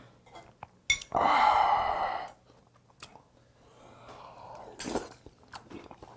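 A metal spoon clinks sharply against a small soup bowl about a second in, followed at once by a loud slurp of clear fish broth lasting about a second. A softer slurp comes around four seconds in, with a few light spoon-on-bowl clinks.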